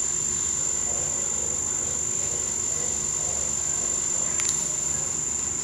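Underwater treadmill running with a dog walking in the water: a steady high-pitched whine from the machine over a low churn and splash of water, with a brief click about four seconds in.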